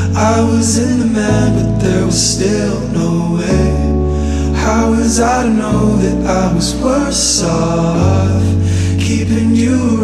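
Music: a song with a singing voice over held bass notes that change about every two seconds.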